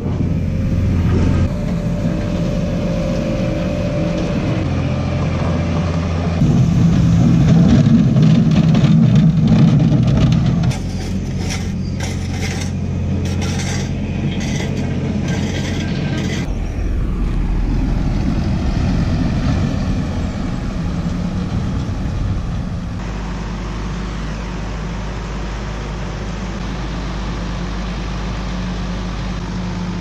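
Farm machine engines running steadily, heard across several short clips that change abruptly in level and pitch. A run of knocks comes around the middle.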